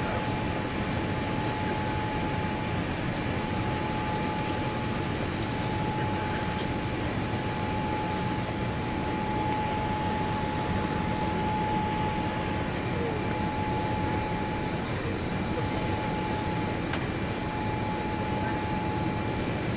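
Steady cabin noise inside a Boeing 787 Dreamliner on approach with flaps extended: an even rush of air and engine noise with a steady whine above it.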